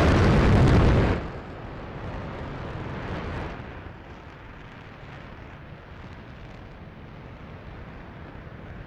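RS-25 liquid-hydrogen/liquid-oxygen rocket engine firing on a test stand: a loud roar just after ignition that drops sharply about a second in. It carries on as a steadier, quieter roar that eases again about three and a half seconds in.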